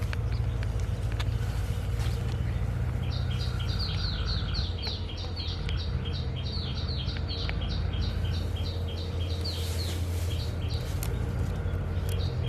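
A bird calling in a rapid series of short, downward-sweeping chirps, about four or five a second. The chirps start a few seconds in, stop about ten seconds in, and come again near the end, over a steady low rumble.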